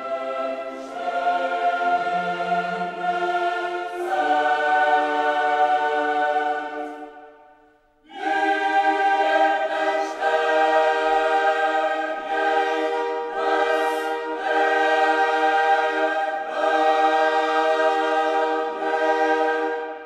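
Background music of sustained choir-like chords that change every few seconds. It fades away about seven seconds in and starts a new phrase a second later.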